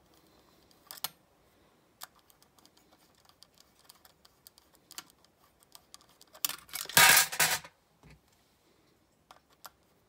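Light clicks and taps of small metal parts and hand tools as a screw is fitted back into a Quadrajet carburetor's choke assembly, with a louder scraping rattle lasting about a second near the end.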